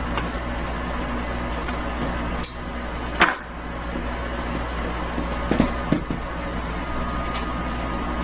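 Stand mixer motor running steadily, blending rye and white flour dough, with a few sharp knocks about three seconds in and again near the end.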